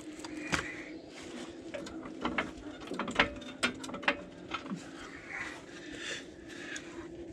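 Hydraulic floor service jack being pumped to raise a truck's front suspension: irregular metallic clicks and clunks.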